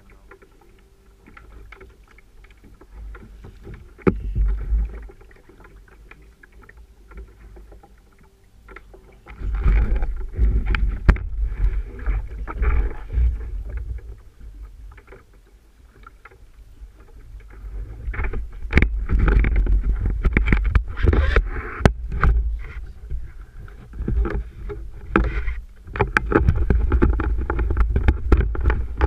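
Sea water splashing and slapping against a paddle ski, with wind rumbling on the microphone and scattered sharp knocks. It is fairly quiet at first, gets louder about ten seconds in, and is loud again through the last ten seconds.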